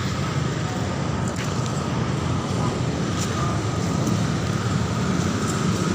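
Steady road traffic noise with a low, constant engine hum.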